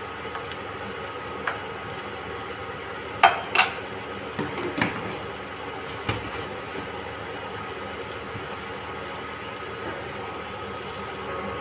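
A metal spoon clinking and scraping against a steel cooking pot as sugar is stirred into a simmering decoction, a scatter of sharp clinks with the two loudest about three seconds in, over a steady low hiss.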